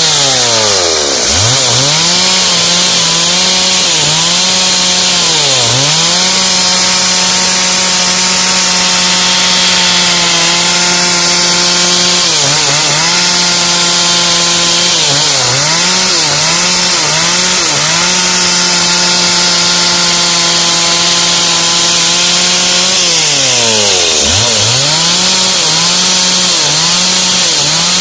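Two-stroke chainsaw running at high revs. Its engine pitch drops sharply and climbs back up about five times.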